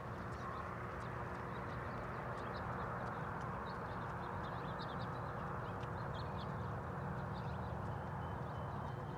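Small birds chirping in short, irregular calls over a steady low background rush.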